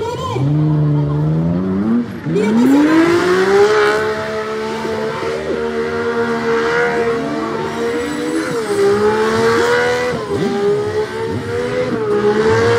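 Muscle car's engine revved hard during a smoky burnout. The revs climb sharply twice in the first two seconds, then hold high with a few brief dips, while the spinning rear tyres squeal.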